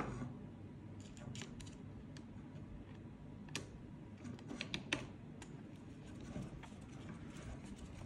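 Faint small clicks and taps of a screwdriver and screw on a crossbow's frame as a screw is fitted and turned in, with a few sharper clicks around the middle.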